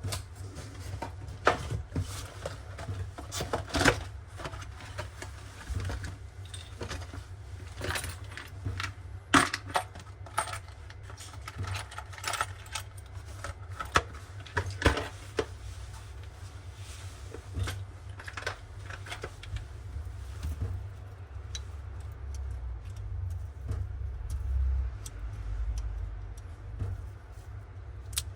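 Irregular metallic clicks, clinks and knocks of tools and fittings being handled during kitchen faucet replacement work, over a low steady rumble. The clinks come thickly at first and thin out in the last several seconds.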